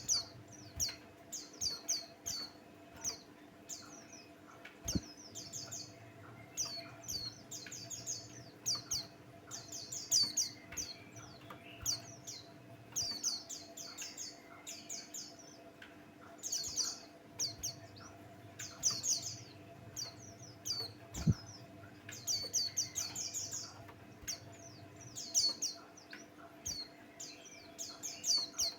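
White-eye (pleci) singing a lively song: repeated phrases of rapid, high chirps with short pauses between them. A faint steady hum runs underneath, and there are two brief knocks.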